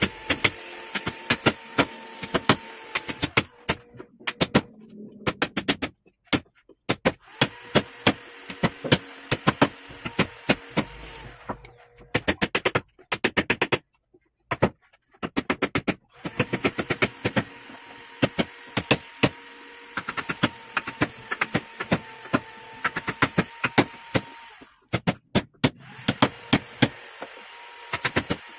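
A chisel being struck repeatedly as it cuts into a hardwood board: quick runs of sharp knocks, several a second, with short pauses between runs. A faint steady hum runs underneath.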